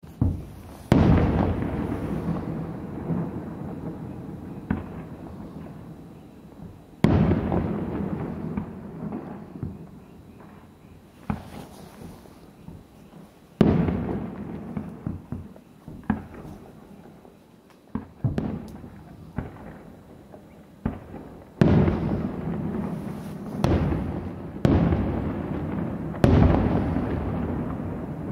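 Aerial firework shells bursting: about ten sharp bangs at uneven intervals, each followed by a long rumbling echo that dies away over several seconds.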